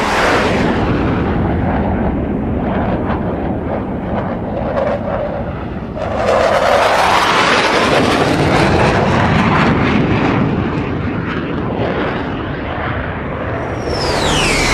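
Electric motor and propeller of a small foam RC plane running in flight, heard from an onboard camera under a heavy rush of wind. About six seconds in the sound gets louder and its tone rises; near the end a high whine falls in pitch.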